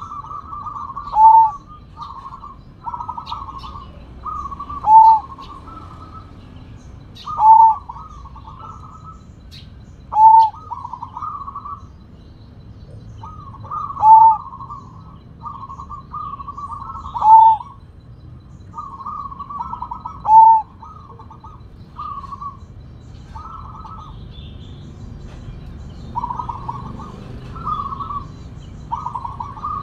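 Sumbawa zebra dove (perkutut) singing its cooing song. Seven phrases come every three to four seconds, each ending in a loud short final note. Near the end come a few quieter cooing phrases without the loud ending.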